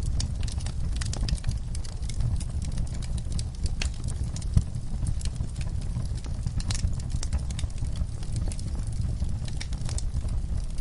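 Log fire crackling: frequent sharp pops and snaps over a steady low rumble of burning wood, with one louder pop about halfway through.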